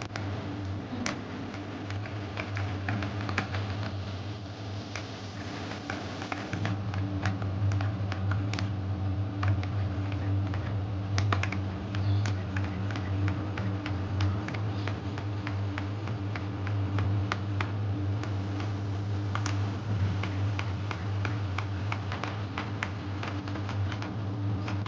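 Irregular sharp clicks and taps over a steady low hum.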